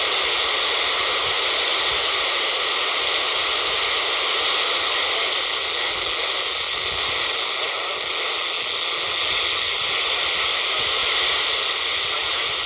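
Handheld scanner's speaker giving out a steady FM static hiss, tuned to 27.78 MHz with no station coming through.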